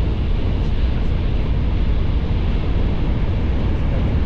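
Steady low rumble and noise of a moving vehicle.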